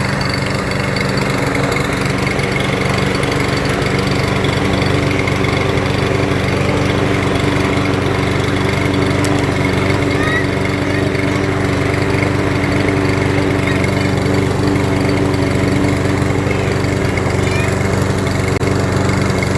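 Gas walk-behind lawn mower, a Craftsman M260, running steadily at constant speed while mowing.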